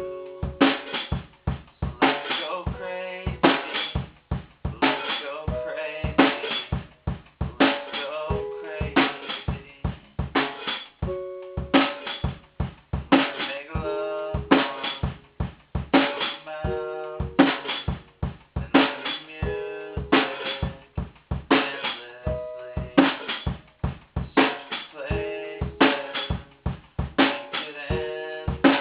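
One-man-band instrumental passage: a drum kit with bass drum and snare keeps a steady beat, while a pitched instrument plays short held notes between the strikes.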